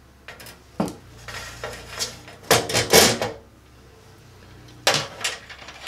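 Metallic clicks and clatters as wires are fed up through a knockout in a steel electrical panel enclosure and a surge protector is fitted against its underside: a single click about a second in, a louder cluster around three seconds in, and another near the end.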